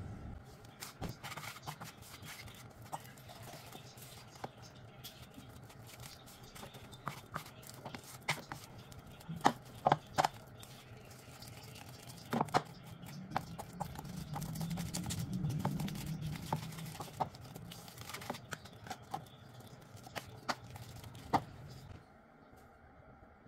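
A spoon stirring and creaming a thick butter mixture in a bowl: soft scraping with irregular sharp clicks as the spoon knocks against the bowl.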